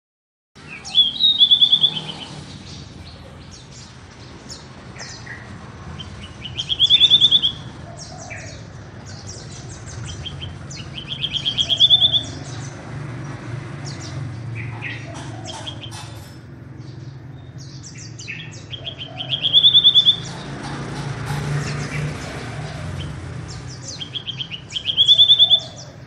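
Caged magpie-robin calling: a loud, rapid rising trill about a second long, repeated five times roughly every five seconds, with short high chirps in between. A steady low hum sits underneath.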